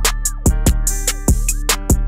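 Background music with a steady drum beat, deep bass and a sustained synth-like melody.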